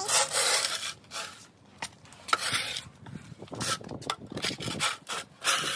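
Metal snow shovel scraping snow off concrete pavement: a long scrape near the start and another near the end, with short knocks and scuffs between.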